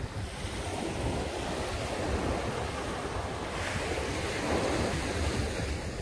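Small sea waves breaking and washing up a sandy beach: a continuous rush of surf that swells about three and a half seconds in as a wave comes ashore.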